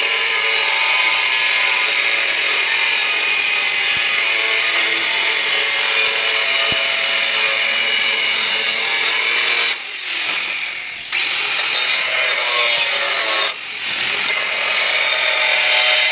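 Handheld angle grinder with a cutting disc cutting through a floor tile: a loud, steady high-pitched whine. In the second half the sound drops away briefly twice, and each time the motor's whine climbs back up.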